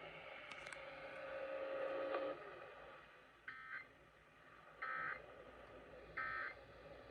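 A steady hiss with a hum until about two seconds in, then three short, identical screeching data bursts about 1.4 seconds apart: the Emergency Alert System end-of-message (EOM) code, sent three times to close the test.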